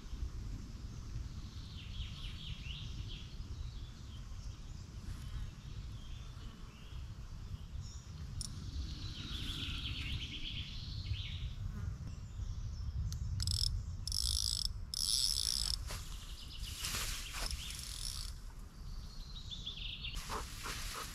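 Riverbank outdoor ambience: birds chirping and insects buzzing over a steady low rumble. There is a burst of high-pitched buzzing partway through, and short rustles near the end.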